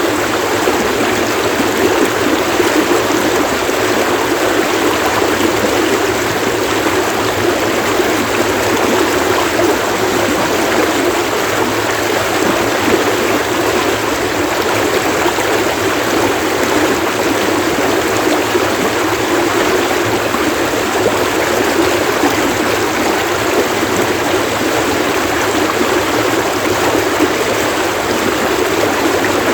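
Stream water running and splashing in a steady, loud rush.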